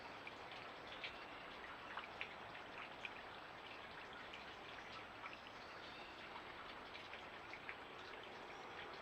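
Small mountain creek running and babbling steadily, with scattered small splashes and drips.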